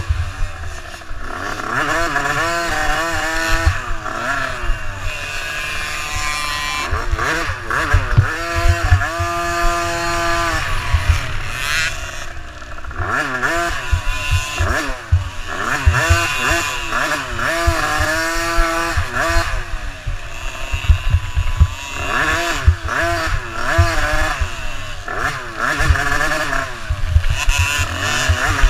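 Dirt bike engine revving up and falling back again and again as it rides a rough trail, with frequent low knocks from the bumpy ride.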